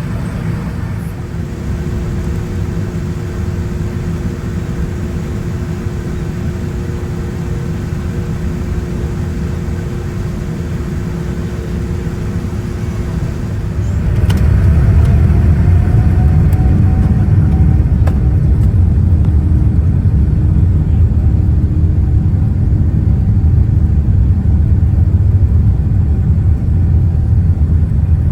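Cabin sound of a Boeing 787-9: a steady low engine hum with a few held tones. About halfway through, the engines spool up to take-off thrust, with a rising whine, and the low rumble grows much louder and stays there as the take-off roll begins.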